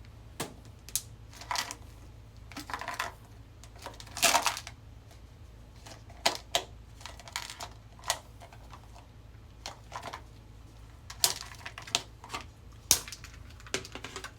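Hands working slime and its little add-ons: irregular sharp clicks and taps, with a few short, louder squelching bursts in the first half.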